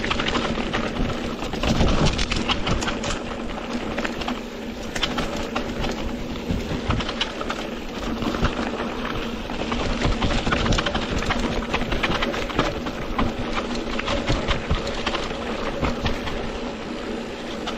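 Mountain bike rolling fast down a rough dirt and rock trail: a continuous rush of tyre noise broken by many small knocks and rattles as the bike jolts over stones and ruts.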